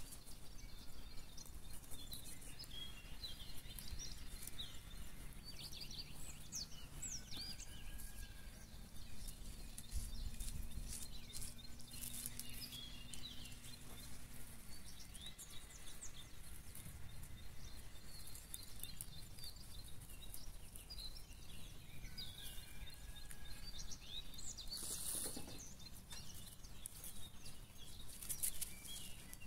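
Outdoor ambience of small birds chirping on and off, with the scratching of a small hand cultivator working through soil in a garden bed. A faint low drone runs for several seconds in the middle, and there is one brief louder rustle about 25 seconds in.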